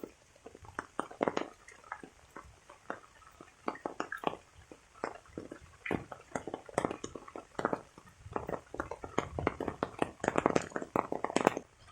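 Rainwater dripping and splashing in irregular drops and taps, with no steady downpour hiss; the drops come thicker toward the end.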